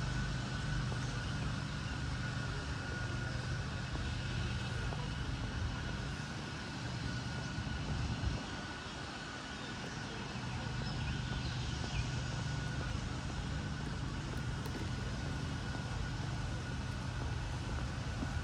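Steady low drone of distant engines, with a faint thin steady whine above it; the drone eases off for a few seconds near the middle and returns.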